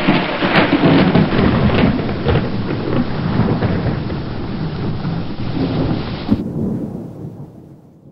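Thunderstorm: thunder rumbling over heavy rain, with a few sharper cracks early on, starting loud and fading away over the last few seconds.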